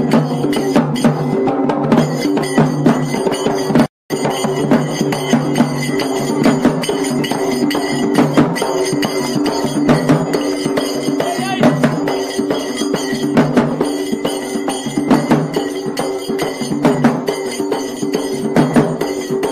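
Festival procession music: dense, fast drumming with a sustained pitched melody line over it. The sound drops out for an instant about four seconds in.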